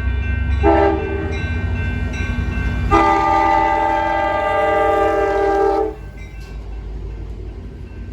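A multi-note air horn sounds a short blast and then a long one of about three seconds, over a steady low rumble.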